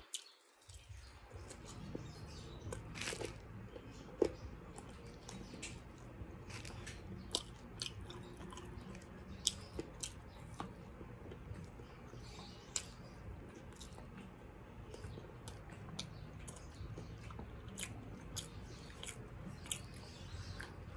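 Close-miked chewing and mouth sounds of a person eating rice and chicken adobo by hand, with irregular short smacks and clicks throughout.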